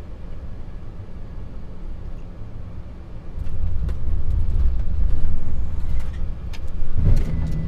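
Cockpit noise of a Dassault Falcon 7X bizjet on landing: a steady rush of engine and airflow, then about three and a half seconds in a much louder low rumble with scattered knocks as the wheels touch the runway and the jet rolls out.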